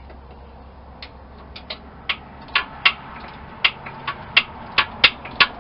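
Socket ratchet wrench clicking as a bolt is tightened: sharp metallic clicks, a few scattered at first, then coming about three a second from about halfway through.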